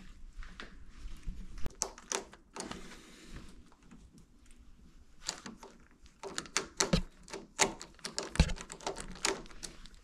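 Irregular clicks and light knocks of a door and its brass knob lock being handled, coming more often after about five seconds.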